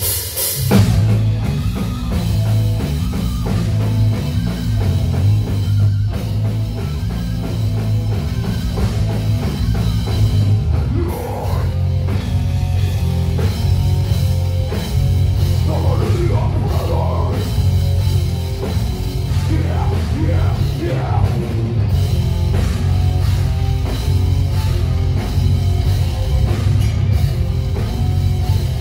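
Metal band playing live: distorted guitar, bass guitar and a drum kit, loud and dense with a heavy low end.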